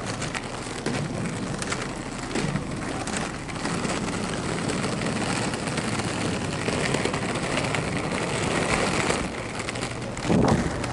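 Roller skate wheels rolling steadily over rough asphalt: a continuous gritty hiss scattered with small clicks, louder about ten seconds in.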